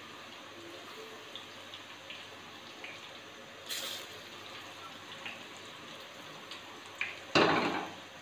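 Besan-battered brinjal slices deep-frying in hot oil: a steady sizzle with scattered small pops, a brief sharper hiss about four seconds in, and a short, louder rush of sound near the end.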